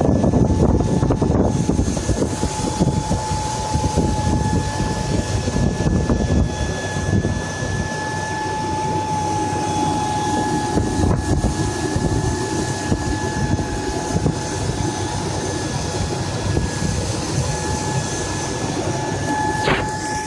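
1999 Mercury Mountaineer 5.0 V8 running, with a steady high whine over the engine noise. The whine comes from the driver's side of the engine bay; the A/C compressor, power steering, idler pulley and water pump have been checked, and the belt tensioner pulley has not. A single sharp click near the end.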